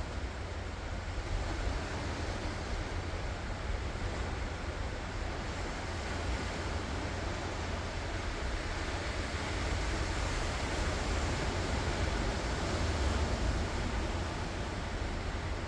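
Ocean waves washing onto the shore in a steady surf hiss with a deep low rumble, swelling slightly louder about two-thirds of the way through, with some wind buffeting the microphone.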